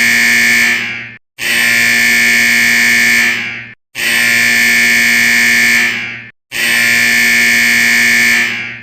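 Harsh electronic alarm buzz, the alert tone of a mock Emergency Alert System broadcast: a steady rasping tone in loud blasts about two and a half seconds long, separated by brief breaks.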